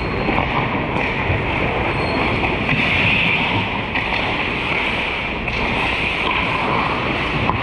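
Ice hockey skate blades scraping and carving the ice during play, heard as a steady rushing noise with a few faint clicks.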